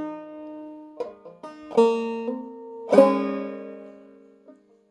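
Five-string banjo played clawhammer style in sawmill tuning, tuned down about a step and a half: a short phrase of plucked notes, the strongest struck about three seconds in and left ringing until it fades.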